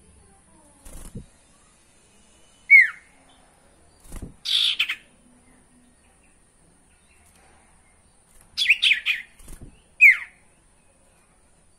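Common iora (sirtu) calling. It gives two sharp, steeply falling whistles, one about three seconds in and another about ten seconds in. Between them come a short harsh chatter and a quick run of several notes, along with a few soft low thumps.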